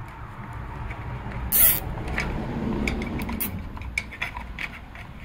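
Nylon zip tie being pulled tight around headlight wiring: a short zipping rasp about one and a half seconds in, the loudest sound, followed by scattered light clicks of the plastic tie and wires being handled.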